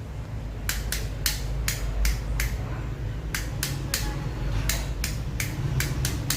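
Wall light switches of a 3-gang switch being flicked on and off: a run of about fifteen sharp clicks, often in quick pairs, with a short pause partway through, as the switches are tested against their lights.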